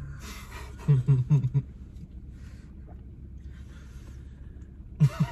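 A woman's short bursts of stifled giggling, about a second in and again near the end, over the low steady rumble of a car's cabin.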